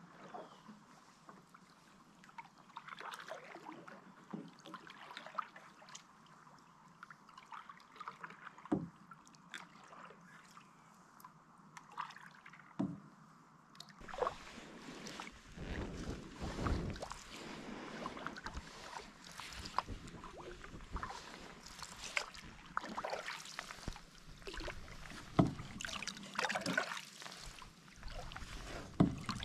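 A wooden canoe being paddled: paddle strokes, drips and water lapping, with a few sharp knocks in the first half. About halfway through it gets louder and closer, with a low wind rumble on the microphone.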